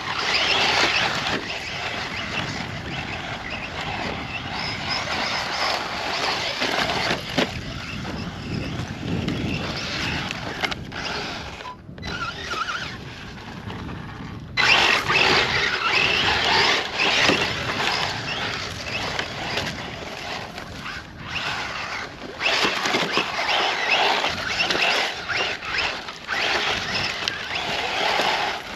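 Electric RC truck driving off-road: a steady rough noise of the brushless motor and tyres on loose ground, briefly dropping out about 12 and 21 seconds in.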